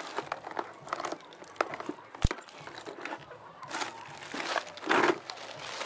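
Rustling, crinkling and light knocks of hands working something in a plastic bucket. There is one sharp click a little over two seconds in and a louder rustle near five seconds.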